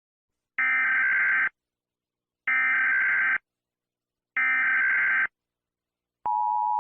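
Emergency Alert System SAME header: three identical bursts of rapid warbling data tones, each about a second long and a second apart. About six seconds in, the steady two-tone EAS attention signal begins.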